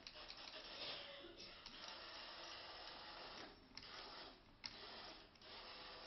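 Faint steady whir of a Roomba robot vacuum running across a hard floor, with a few light clicks.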